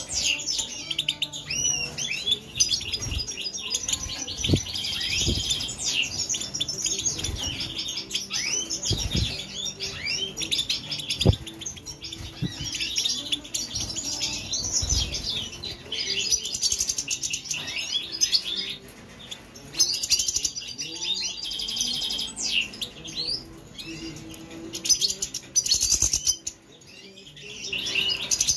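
European goldfinches twittering and chirping continuously in quick, high, sliding notes. A few dull knocks sound among the calls, the loudest about 11 seconds in.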